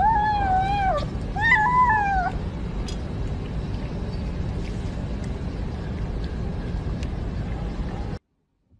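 A kitten meows twice in quick succession, each call high and about a second long, dropping in pitch at the end. Under it runs a steady low background rumble.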